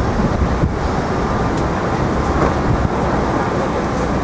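Steady city street traffic noise, with wind rumbling on the microphone.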